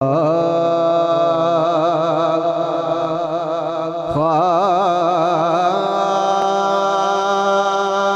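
A man's solo voice singing a long wordless opening phrase of a Punjabi devotional kalam, holding notes with heavy wavering vibrato and ornaments. It breaks off briefly about four seconds in, then moves to a new held note a little before six seconds.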